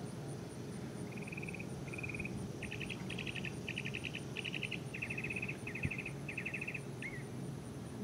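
A songbird singing a run of about eight short, rapid trills, each a little different, ending on a single slurred note, over a steady low rumble. A brief knock sounds near the six-second mark.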